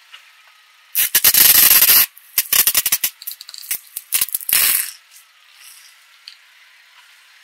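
Plastic squeeze bottle of liquid crushed under a car tyre, its contents squirting out of the nozzle in noisy, spluttering spurts: a long burst about a second in, a broken run of shorter ones, and another burst in the middle.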